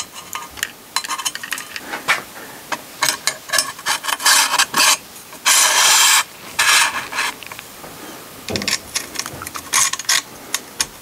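Small clicks and scraping as hands work a scope mount and its cable on a rifle's handguard rail, with several longer rubbing scrapes in the middle.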